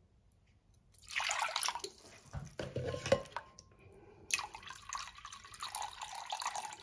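Water poured from a plastic jug into a glass bowl, a steady stream starting about four seconds in, after a few short noises and a sharp knock. The water is being weighed out on a kitchen scale.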